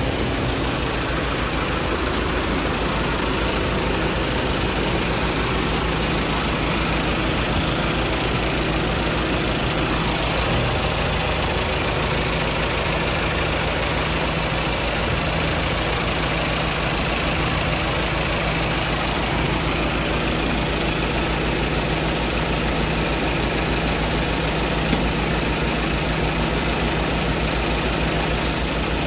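Heavy Peterbilt semi truck's diesel engine idling steadily.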